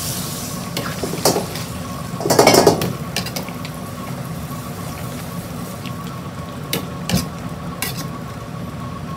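Metal ladle scraping and clinking against a wok while stirring winter melon and chicken in simmering broth, over a steady sizzle. The loudest scrape comes about two and a half seconds in, with a few sharp clinks later on.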